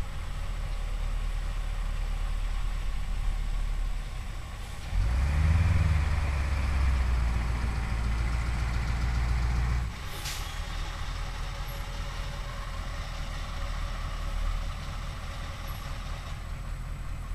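Bus engine running low, then pulling much louder under load for about five seconds as the bus tries to climb a steep, wet hill with stones wedged under its wheels for grip, then dropping back to a low run about ten seconds in with a short hiss.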